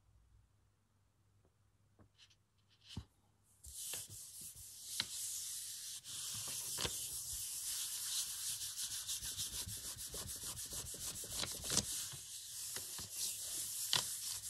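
A hand rubbing flat across a sheet of paper laid on wet paint on a Gelli gel printing plate, pressing the paper down to pull a monoprint. After a light tap about three seconds in, a continuous dry rubbing with small crackles starts about four seconds in.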